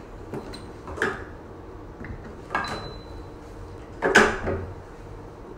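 Handling clicks and knocks from the hydrodermabrasion handle's tubes being pushed into the facial machine's connector ports. There are three sharp knocks about a second and a half apart, and the last, about four seconds in, is the loudest and longest.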